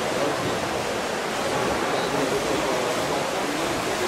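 Steady wash of splashing from swimmers racing freestyle, mixed with a faint murmur of spectators' voices, in a reverberant indoor pool hall.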